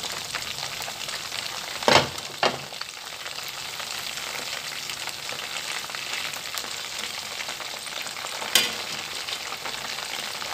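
Chicken wings frying in hot oil in a stainless steel pot, a steady sizzle, as metal tongs turn them over. A few sharp metal clinks of the tongs against the pot: two close together about two seconds in, and one more later.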